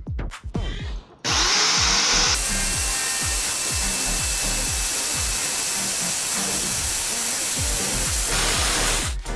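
Electric drill with a ceramic-and-glass bit starts about a second in and runs steadily at full speed, boring through an MDF pressure board into a piece of glass submerged in water. It stops shortly before the end. Background music with a steady beat plays under it.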